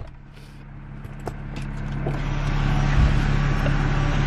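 Steady low hum of a truck engine idling, heard from inside the cab, with a few faint clicks and knocks.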